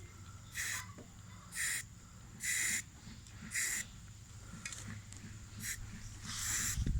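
Aerosol spray can of rust preventative sprayed onto a steel rack in short hissing bursts, about one a second.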